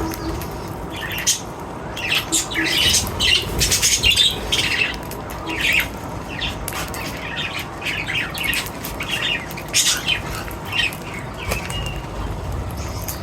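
Birds chirping and squawking in short, irregular calls, mixed with rustling or wing flapping.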